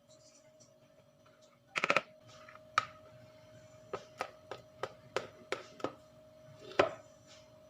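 Light clicks and taps of kitchen work during baking: a quick rattle of four or five clicks about two seconds in, then single taps every third of a second or so, and one louder tap near the end, over a faint steady hum.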